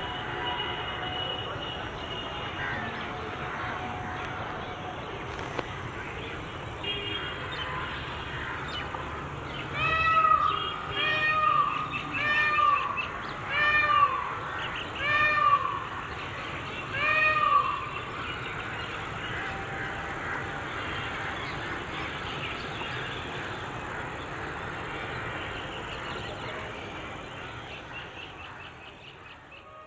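Outdoor ambience with a run of six loud animal calls about a second apart, each one rising and then falling in pitch. The ambience fades out near the end.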